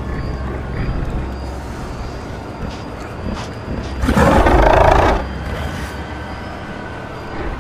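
A dinosaur roar sound effect, about a second long, starting a little past halfway through, over a low steady rumble.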